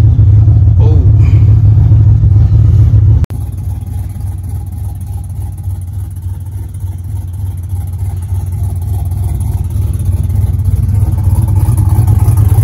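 Pickup truck engine idling with a steady, deep rumble, heard from inside the cab at first; about three seconds in the sound cuts abruptly to a quieter outside take of the idling engine, which grows gradually louder toward the end.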